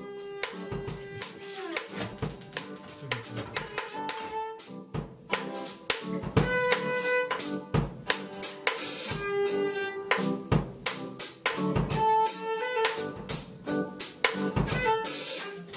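Background music: a drum kit beat under held melodic notes.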